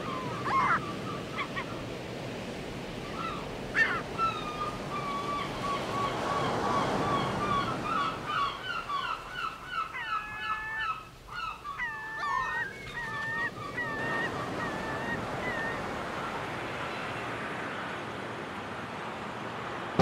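Gulls calling, several birds at once: rapid series of short cries and some longer calls that bend upward in pitch, over a steady wash of surf. The calls thin out in the last few seconds, leaving only the surf.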